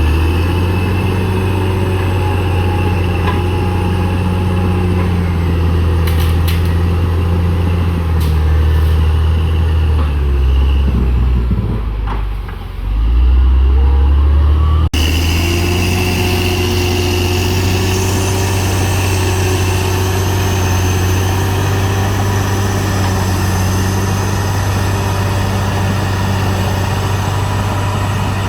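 CAT D6R XL bulldozer's diesel engine running steadily. About twelve seconds in, its note sags and dips, then picks back up. A few seconds later the sound cuts abruptly to a similar steady engine sound.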